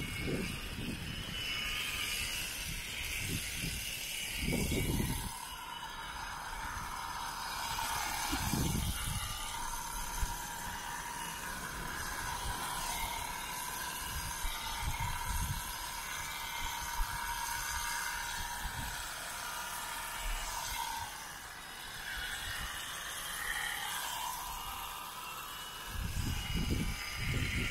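Electric shearing handpiece running with a steady whir as it cuts through alpaca fleece, with a few short low rumbles.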